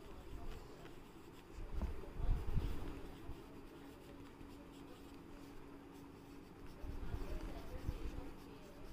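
Pencil writing on a paper workbook page: soft scratching strokes of the graphite as words are written, with dull low bumps of the hand and page about two seconds in and again near the end.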